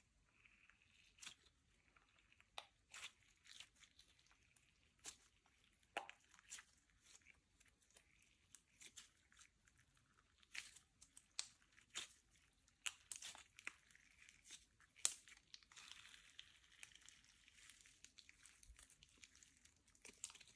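Slime being mixed and worked by hand, giving faint, irregular crackles and sharp little clicks.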